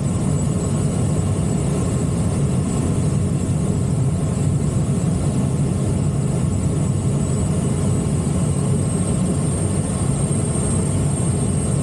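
Steady rush of airflow around the canopy of an ASK 21 two-seat glider in flight, heard from inside the cockpit as an even low rumble with a thin high whistle running through it.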